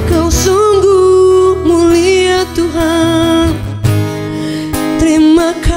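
A woman singing a worship song, holding long notes with vibrato, over a strummed acoustic guitar.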